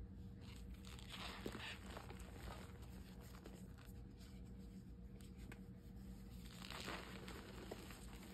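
Hands crumbling and crushing blocks of reformed gym chalk into powder: soft, dry crunching and crackling, strongest in two spells, about a second in and again near seven seconds.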